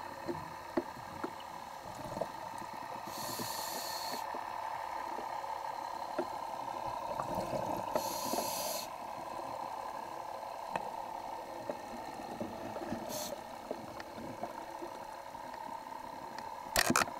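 Diver breathing on a scuba regulator underwater: three short hissing breaths roughly five seconds apart over a steady hum and scattered small clicks, with a cluster of loud clicks near the end.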